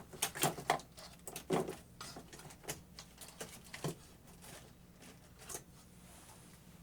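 Irregular clicks and knocks of tools and small metal parts being handled while a submersible water pump motor is taken apart, thickest in the first few seconds, with one more knock later.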